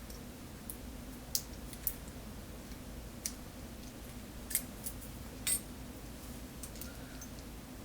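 Small sharp metal clicks from tools working on a DOM ix KG lock cylinder, about seven scattered ticks over a steady low hum.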